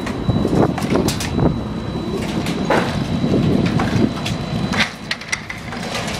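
Mini excavator's engine running with a steady low rumble while its bucket pulls at the twisted steel wreckage of a collapsed Ferris wheel, giving several sharp metal clanks and scrapes.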